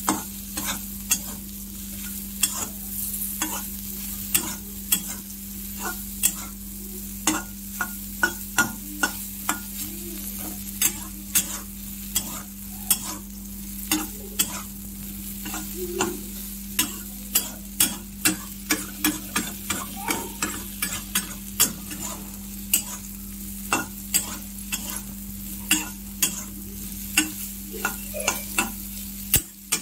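Bitter gourd slices frying in oil in a kadai while a metal spatula stirs them, with a steady sizzle and sharp clacks and scrapes of the spatula against the pan two or three times a second. A steady low hum runs underneath.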